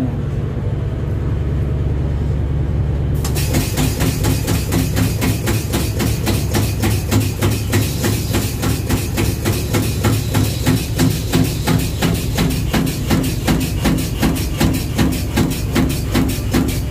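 A lube truck's oil pump starting up for one of its outlets, with a steady low hum first and then, from about three seconds in, a fast, even rhythm of mechanical knocks as it pumps oil to the hose reel.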